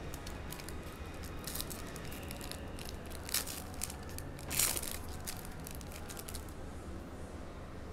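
Donruss Basketball hobby pack wrapper crinkling and tearing as a pack is opened, with the cards handled; the loudest rustles come about three and a half and four and a half seconds in.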